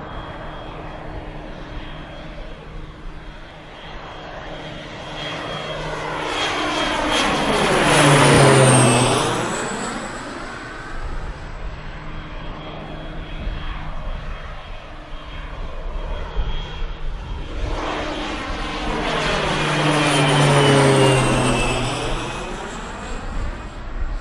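Two PZL-130 Orlik turboprop trainers passing low overhead one after the other on landing approach. Each engine and propeller sound swells as the plane nears, then drops in pitch as it passes, the first about a third of the way through and the second near the end.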